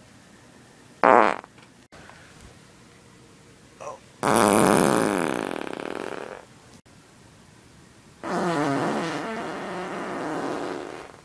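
Loud farts: a short sharp one about a second in, then two long, wavering ones of about two and three seconds.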